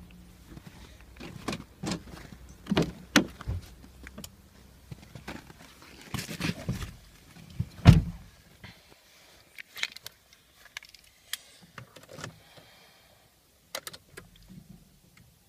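Footsteps in snow beside a Volkswagen Passat, then its door opened and shut, the loudest thump about eight seconds in. After that, scattered small clicks and key jangles while the ignition is switched on; the engine is not running.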